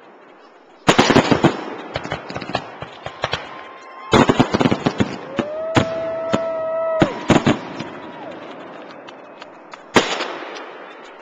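Fireworks display: aerial shells bursting in salvos of sharp crackling bangs about a second in and again around four seconds, with a few steady held tones in between and one sharp bang near the end.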